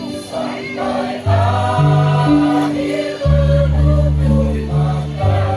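A choir singing in several-part harmony over steady, held bass notes that change every second or so.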